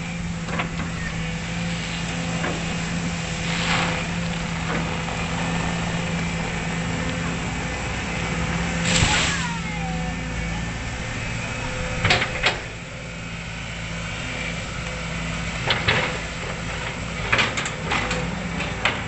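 Sumitomo hydraulic excavator's diesel engine running steadily under load as it pushes over an oil palm tree, with a loud rushing crash about nine seconds in as the palm comes down. Sharp knocks and clanks follow in the last few seconds.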